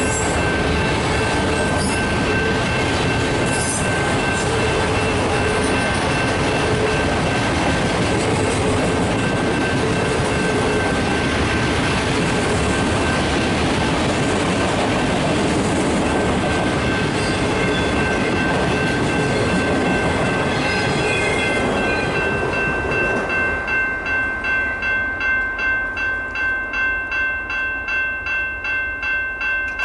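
Freight train autorack cars rolling past: a steady rumble of wheels on rail, with a high ringing tone held over it. Near the end the rumble dies away as the last cars clear, and the high ringing tone is left pulsing about twice a second.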